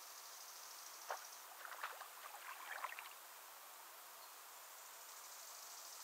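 Faint water splashing: a frog's leap from the pond at an egg-laying emperor dragonfly, heard as one sharp splash about a second in and then a short flurry of small splashes and drips. Behind it runs a steady high insect chirring, which drops away during the splashing and returns near the end.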